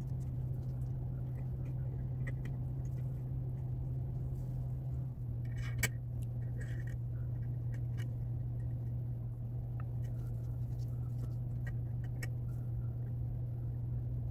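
Steady low hum with scattered faint clicks and light metallic taps of small parts of an Ingraham mantel clock movement being handled and fitted during reassembly. There is one sharper click about six seconds in.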